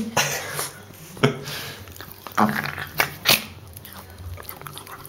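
A dog sneezing over and over, about five short sharp sneezes within a few seconds, the last two close together.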